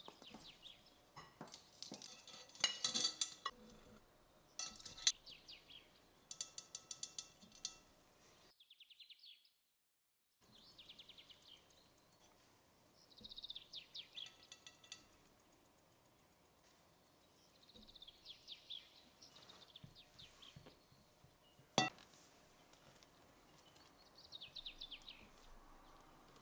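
A metal measuring spoon clinking and tapping against a baking-powder tub and bowl, then a small fine-mesh metal sieve shaken and tapped over a glass bowl in short bursts of fast ticking as flour is sifted, with one sharp knock late on.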